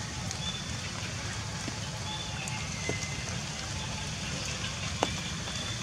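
Steady outdoor background noise with a low rumble and a few faint high chirps, broken by two sharp clicks about three and five seconds in.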